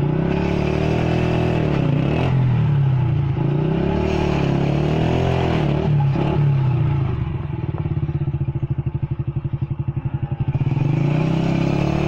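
Motorcycle engine running loudly up close. Its note wavers in the first half, then settles into an even, rapid beat of firing pulses.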